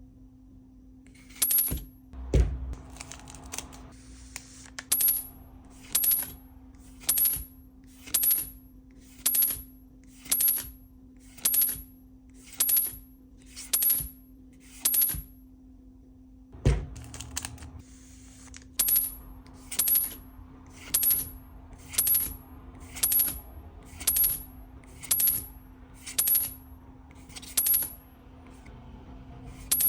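Pokémon trading cards being flipped through one at a time, a short sliding swish about once a second. There are two heavier thumps, about two seconds in and about halfway through.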